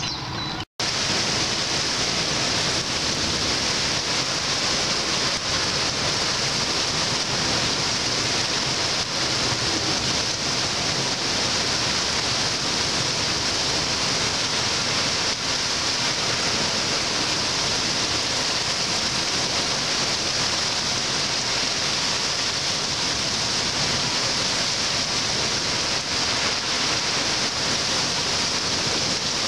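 Heavy rain pouring down in a steady downpour, a dense even hiss that starts just under a second in and runs unchanged.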